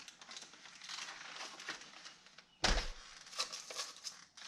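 Hands handling a radio-control truck and its battery tray: scattered small clicks and rustling, with one solid thump about two and a half seconds in.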